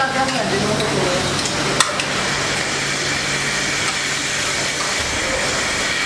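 Steady hiss of rotary-parlour milking machinery, with a low steady hum underneath and a single sharp metallic click about two seconds in.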